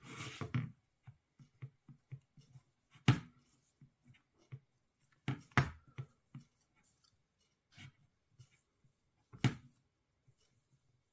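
Hands handling a phone and a paper dust-removal sticker on its glass screen. A short papery rustle at the start is followed by scattered light taps, with three sharper knocks: about three seconds in, about halfway, and near the end.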